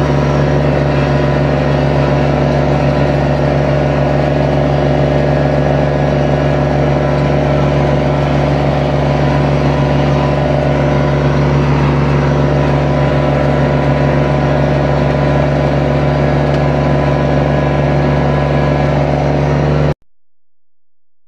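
Kubota BX24 compact tractor's three-cylinder diesel engine running steadily under load while driving a flail mower through grass. The sound cuts off abruptly about a second before the end.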